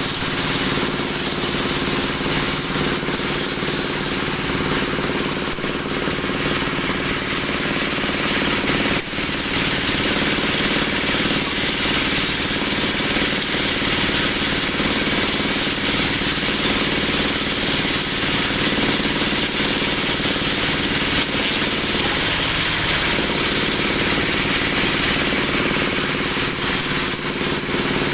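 Dowel machine running steadily while turning wood into broom handles: a steady machine hum under a continuous hiss.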